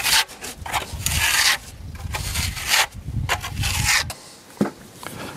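Stainless steel smoothing float scraping wet waterproofing render onto stone, a series of rasping strokes of uneven length as the coat is spread and smoothed.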